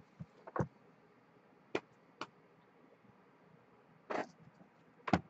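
A handful of scattered light clicks and taps, with a short scuff about four seconds in, from objects being handled at a desk.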